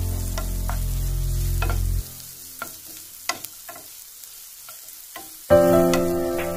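Mutton brain and bell peppers sizzling in a nonstick frying pan as a spatula stirs them, with several sharp taps and scrapes against the pan. Background music plays over it, dropping out for a few seconds in the middle, where the stirring clicks are clearest.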